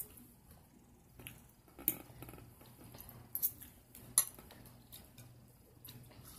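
A person eating a meal: a handful of sharp, light clicks and clinks of a plate and cutlery, the loudest about two and four seconds in, with quieter eating sounds between them.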